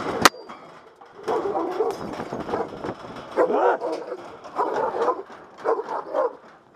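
A dog barking repeatedly in short bursts about a second apart, with a single sharp knock just after the start.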